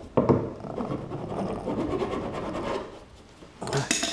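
Round file rasping back and forth on a plastic kayak hull, smoothing a rough area. The filing stops a little under three seconds in, and a brief louder noise follows near the end.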